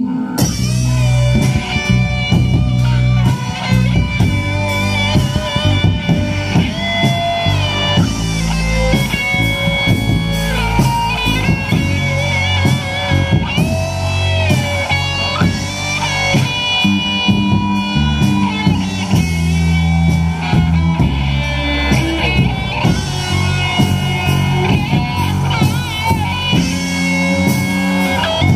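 A live rock band playing through a PA system: electric guitars, bass guitar and drum kit. A lead line with bent and wavering notes sits over a steady bass and drum groove.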